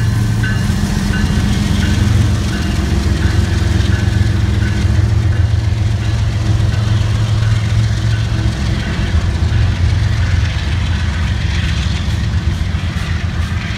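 A line of BNSF diesel freight locomotives passing close by, with a steady deep engine drone that eases somewhat in the second half as the last unit goes by. In the first couple of seconds a ringing tone repeats about twice a second and fades out.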